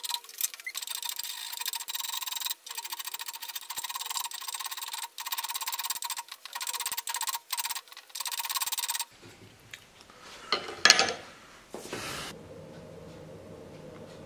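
Hand file rasping across a small metal piece held in a bench vise, in repeated strokes with short pauses. The filing stops about nine seconds in. A brief louder scrape or knock comes near eleven seconds, then a faint steady hum.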